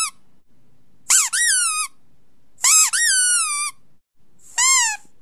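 Rubber squeaky dog toy being squeezed: three separate high, bright squeaks, each jumping up in pitch and then sliding down.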